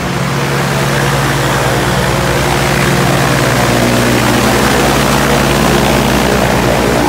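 Viking aircraft engine on a Rans S-12 ultralight running steadily on the ground, its pusher propeller turning, a little louder after the first second.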